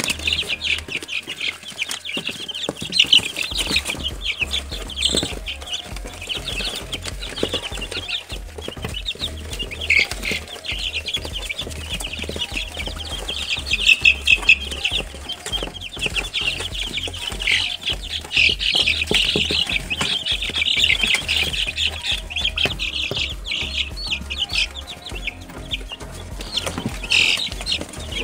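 A brood of young Australorp and Dominant cross chicks peeping continuously, many short high cheeps overlapping, with a few louder bursts.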